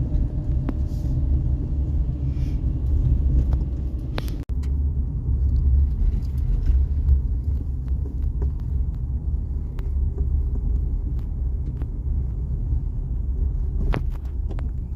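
Steady low rumble of a car driving, heard inside the cabin, with a brief break about four and a half seconds in.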